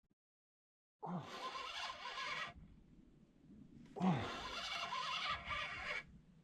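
Fishing reel's line clicker buzzing in two bursts as a fish pulls line off a live bait: a bite.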